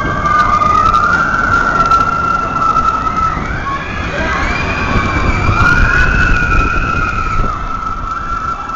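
Roller coaster ride: several long, high, wavering cries from riders overlap on top of the steady low rumble of the coaster train running into a dark tunnel.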